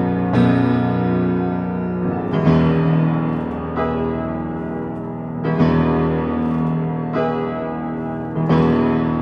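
Instrumental music: a piano playing slow, held chords, a new chord struck every one and a half to three seconds.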